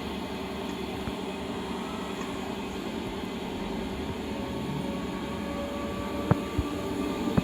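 DB Class 425 electric multiple unit standing with its equipment running: a steady mechanical hum with a faint steady whine coming in about halfway. A few sharp clicks or knocks near the end.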